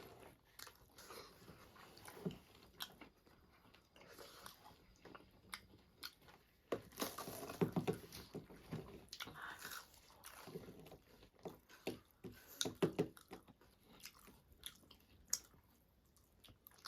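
A person eating: quiet chewing and crunching with wet mouth clicks and smacks, coming in short, irregular bursts.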